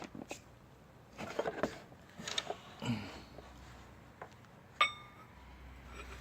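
Metal tools being handled: soft clicks and rattles as a digital caliper is set against a steel hole saw, then a sharp metallic clink with a brief ring about five seconds in.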